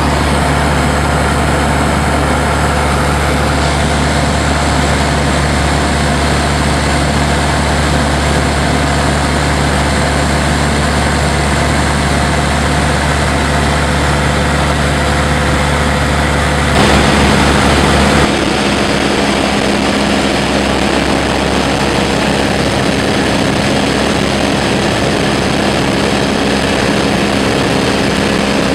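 Piper Cub's piston engine and propeller droning steadily in cruise, heard from inside the cabin. About 17 s in it briefly gets louder and the tone then shifts to a slightly different steady drone.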